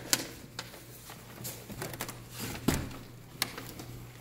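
Sheer fabric curtains rustling as they are handled and brushed aside, with several sharp clicks and knocks through it, over a steady low hum.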